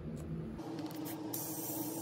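Compressed air hissing at the valve stem of a pneumatic garden-cart tire as an air chuck is pressed on, starting a little past halfway in.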